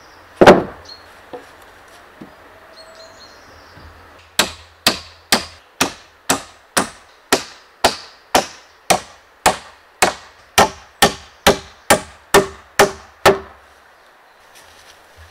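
One heavy wooden thud about half a second in, then a hammer driving nails into the wooden frame: about twenty even blows at roughly two a second for around nine seconds, the later ones ringing slightly.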